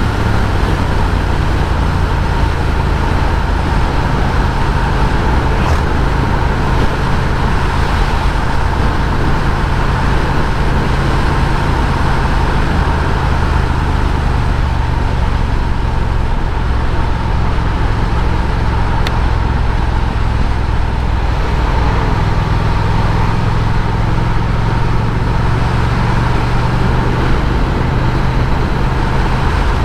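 Triumph Speed Twin's parallel-twin engine running steadily at road speed, mixed with constant wind and road noise. The engine note shifts slightly about two-thirds of the way through.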